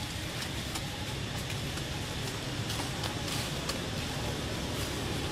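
Steady outdoor background noise, a low rumble with a hiss over it, broken by a few faint clicks.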